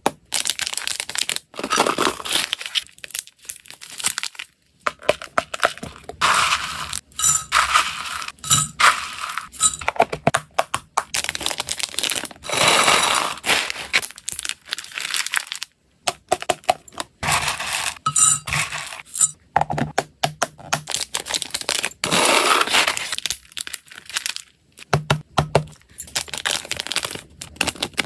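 Hamster snack packing: clear plastic bags crinkling and dry treats (pellets, puffed rice, small biscuits) clicking and rattling against plastic boxes. The sound comes as a close, busy run of short clicks and rustles with a few brief pauses.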